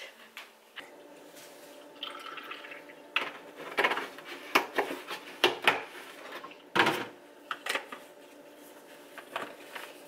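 Milk poured from a plastic gallon jug into a toddler's plastic sippy cup. Then a run of sharp clicks and knocks as the jug and cup are handled on the counter and the lid is fitted.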